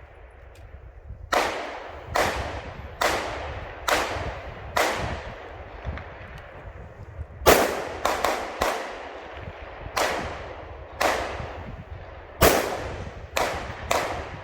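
Rifle fired in a competition course of fire: about a dozen sharp shots, each trailing off in an echo. The first five come evenly, a little under a second apart. After a pause of two or three seconds the rest follow at uneven spacing, some in quick pairs.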